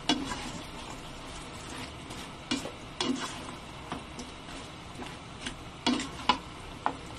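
Spatula stirring fried chicken wings through sauce in a non-stick wok over a steady sizzle, with irregular knocks and scrapes of the spatula against the pan.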